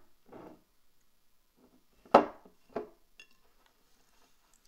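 Two sharp taps about half a second apart, the first much louder, followed by faint crackling.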